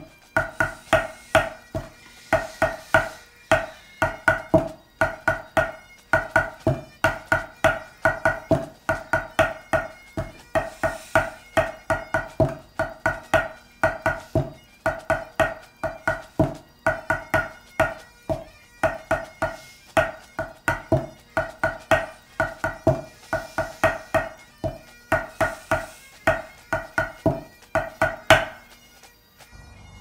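Pipe band drumsticks on a practice pad playing a backsticking exercise: quick rhythmic strokes in phrases, with short pauses between groups. The playing stops near the end.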